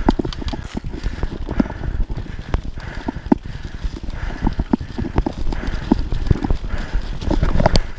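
Kona Process 153 full-suspension mountain bike riding down a dirt singletrack covered in dry leaves: tyres crunching through the leaves, with irregular knocks and rattles as the bike goes over roots and bumps, over a steady low rumble.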